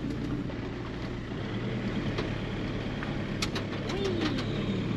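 Van engine running at low speed, a steady low hum, with a few light clicks and a short falling tone near the end.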